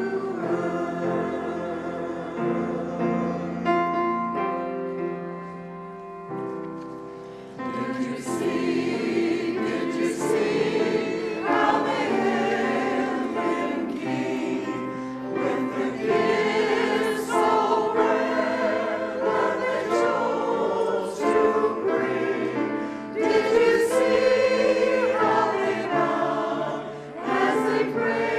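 Mixed church choir of men and women singing, with a softer passage about five seconds in before the full choir comes back in around eight seconds.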